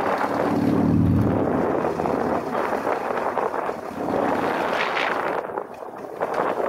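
Motorcycle riding with heavy wind rushing over the microphone. The engine's note is heard for about the first second, then fades under the steady wind noise.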